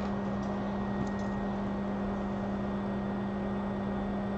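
Steady low machine hum with a faint hiss, and a couple of faint light clicks about a second in.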